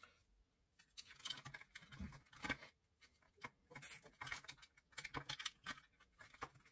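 Faint, irregular scratching, rustling and light clicks of fingers handling the plastic housing and small pump of an opened automatic soap dispenser.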